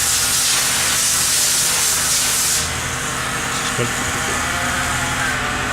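Pressurised spray hissing steadily during cleaning of the milling-head housing, then cutting off suddenly about two and a half seconds in. A steady low machine hum runs underneath.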